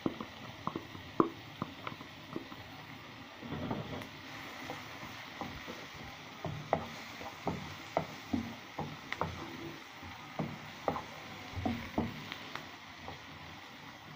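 Spoon stirring and scraping vegetables in a non-stick frying pan, with irregular knocks and clicks of the spoon against the pan over a steady sizzle of frying.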